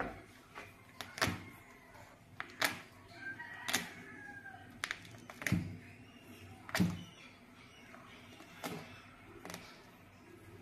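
Feathers being plucked from a wet chicken in a stainless steel sink: irregular sharp knocks and taps of hands and carcass against the steel, about one every second or two.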